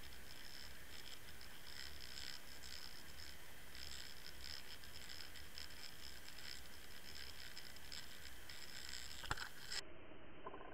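Underwater camera being towed through the water on a fishing line: steady water rush with an uneven rattling from the camera rig, and a single sharp knock about nine seconds in. Near the end the sound abruptly turns muffled, with a quicker, even buzzing rattle.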